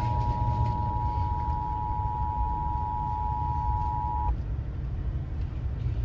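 Emergency Alert System attention signal: a steady two-tone beep that cuts off about four seconds in, over a steady low rumble.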